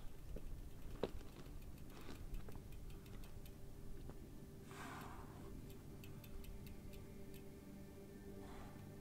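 Faint light clicks and ticks with a soft rushing sound about five seconds in and again near the end, as a loaded bike is handled. Soft, sustained low music tones fade in beneath them.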